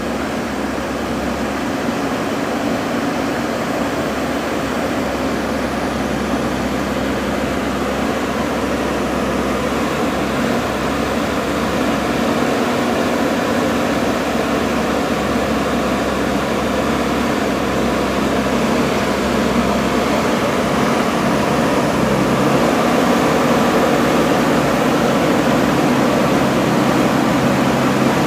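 JCB backhoe loader's diesel engine running steadily under working load, a little louder about halfway through and again near the end.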